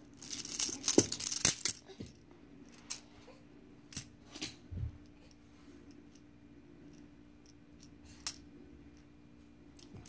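Plastic magnetic building tiles clicking and clacking as they are handled and snapped together: a quick flurry of clicks in the first two seconds, then a few single clicks spaced apart.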